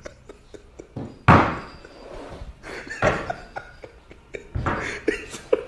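A man laughing hard with his hand over his mouth, in three loud breathy outbursts about a second and a half apart.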